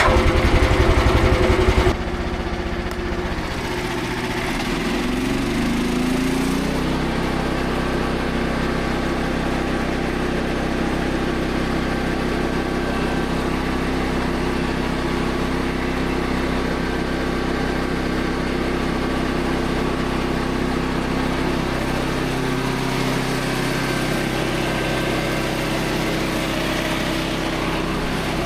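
Portable band sawmill's gas engine throttling up over several seconds, then running steadily at speed with the band blade driven. A loud rushing noise in the first two seconds cuts off abruptly as the engine speeds up.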